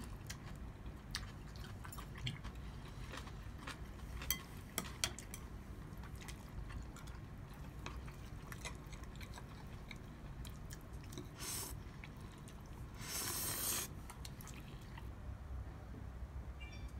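A meal of instant ramen and side dishes being eaten with metal chopsticks: chewing and quiet mouth sounds, with scattered light clicks of chopsticks against bowls and plates. A short noisy burst about two-thirds through, then a longer one lasting about a second.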